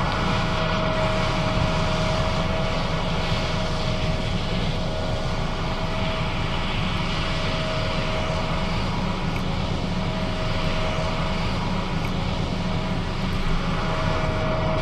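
John Deere S660 combine running steadily while harvesting soybeans: a constant machine drone with a steady whine held over it.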